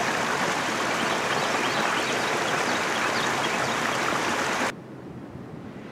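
Shallow stream water running and splashing over a rocky riffle, a steady rushing noise. About three quarters of the way through it cuts off suddenly, leaving a much quieter low rumble.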